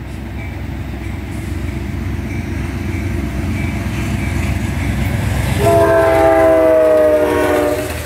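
Amtrak P42DC diesel locomotive approaching slowly, its low rumble building steadily. About six seconds in it sounds its horn, one loud chord of several notes held for about two seconds that drops slightly in pitch as it passes.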